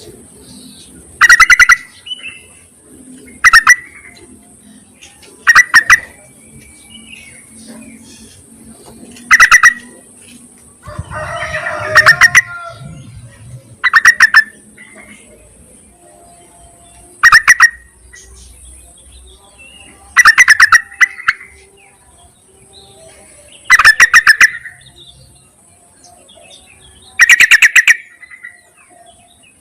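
Female yellow-vented bulbul calling to a male: short, loud chattering calls, each a quick run of notes, repeated about ten times every few seconds. A steady high hiss runs underneath.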